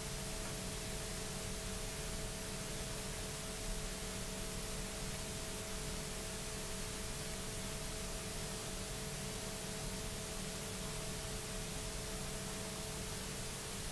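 Room tone: a steady hiss with a low hum and two faint steady tones, the higher of which stops near the end.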